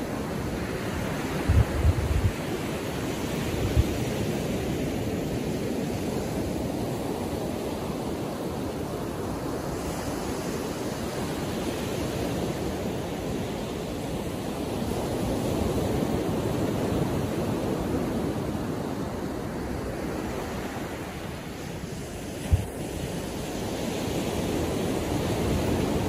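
Surf of small waves breaking and washing up a sandy beach: a steady rush that slowly swells and eases. Wind buffets the microphone in a few brief low thumps, twice near the start and once near the end.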